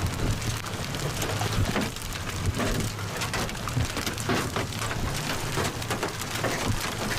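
Hail pelting a vehicle's roof and windshield, heard from inside the cabin: a dense, continuous clatter of hits over a steady low hum.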